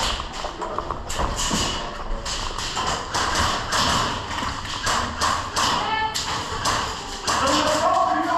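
Fast, irregular knocks and thuds of footsteps and gear on a hard floor, with a brief rising tone about six seconds in.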